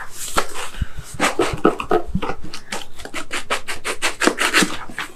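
Small cardboard box being handled and opened by hand: cardboard rubbing and scraping, first in irregular strokes, then a quick even run of scratchy strokes at about five a second over the second half.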